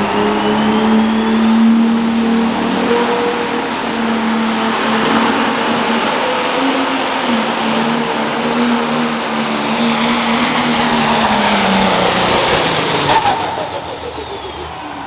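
Pro Stock pulling tractor's turbocharged diesel engine running hard under load, with a high turbo whine that climbs over the first few seconds, holds, then falls away. About thirteen seconds in, the engine note breaks off with a short crackle and the sound drops to a lower level.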